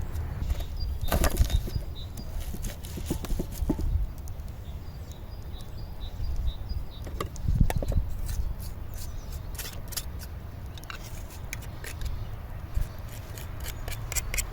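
Wind rumbling on the microphone, with scattered clicks and knocks from handling, clustered in two bursts around the first and second thirds.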